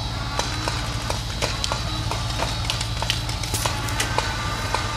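Paintball markers firing in scattered, irregular sharp pops, several a second at times, over a steady low rumble.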